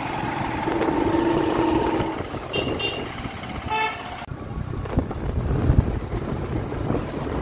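Street traffic heard from a moving motorcycle: engine and road noise with vehicle horns tooting, two quick high beeps about two and a half seconds in and a fuller honk just before four seconds. After that the sound changes abruptly to a lower rumble with a couple of thumps.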